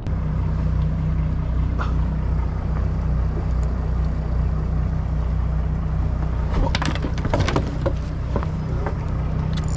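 A boat engine running steadily at a low, even pitch, with a few sharp knocks and clatter about seven seconds in.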